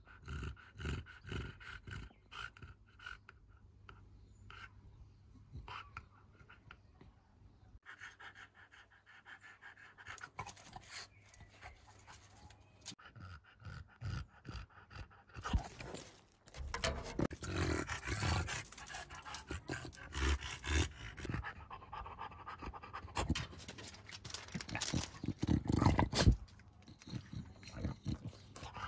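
English bulldog breathing noisily, a long run of quick panting breaths; the breaths grow louder and denser about halfway through. The noisy breathing is typical of the breed's short muzzle.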